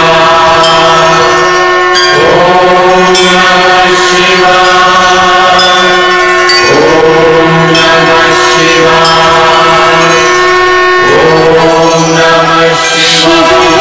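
Devotional music track: a chanted mantra, one voice sliding up into long held notes about every four and a half seconds over a steady drone, with a short percussive strike about once a second.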